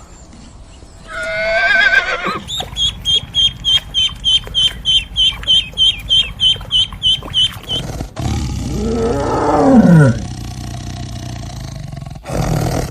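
A sequence of animal calls: first a short pitched call, then a quick run of about seventeen high chirps, roughly three a second, then a long deep call that falls steeply in pitch.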